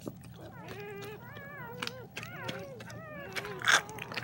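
Newborn German shepherd puppy squealing in a run of short, wavering cries as it is freed from its birth sac. A brief loud rustle of handling comes near the end.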